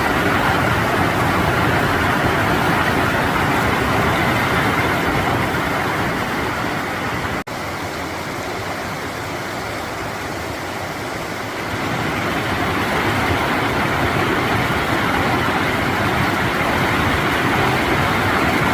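Mountain stream water rushing over rocks, a steady loud rush. It breaks off for an instant about seven and a half seconds in, runs a little quieter for a few seconds, then comes back up to full level.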